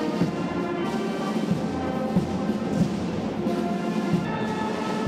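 Orchestral music with held notes and timpani strokes.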